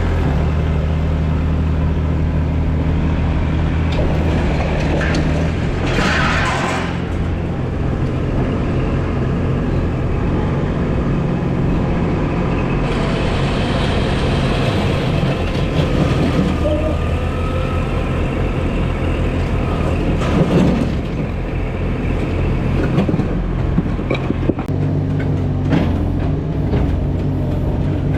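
Heavy diesel engine running steadily at a constant speed, with brief noisy bursts about six seconds in and again about twenty seconds in.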